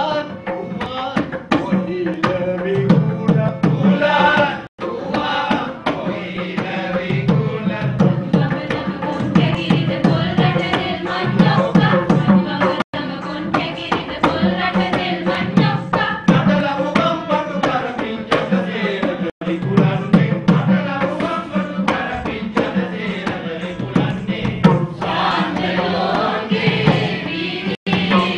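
A man singing a song in Sinhala with drum accompaniment over a steady low drone. The sound cuts out for an instant four times.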